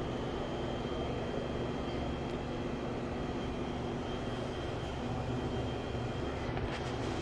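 Steady low mechanical drone with faint steady tones in it, and a few light clicks near the end.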